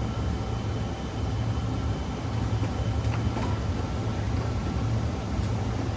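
Scooter engine running steadily at low speed, a low even hum.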